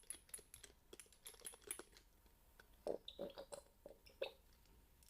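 Close-up ASMR ear-cleaning sounds on the microphone: soft, irregular clicks and crackles, a little louder and denser about three seconds in.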